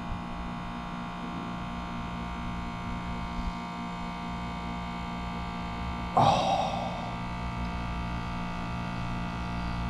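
Goodman condensing unit's compressor running with a steady, even hum while the condenser fan stays off. The fan is held off by its fan cycle switch, which the technician first suspects has failed. A brief, louder noise breaks in about six seconds in.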